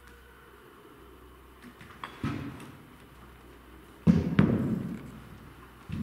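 Three heavy, dull thuds, each with an echoing tail that dies away in a large hall: one about two seconds in and a louder close pair near four seconds.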